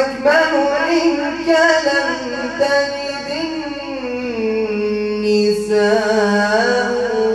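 A man sings an unaccompanied Arabic nasheed in praise of the Prophet into a microphone. He draws out one long ornamented phrase with wavering runs, and about halfway through it drops to a lower note and holds it.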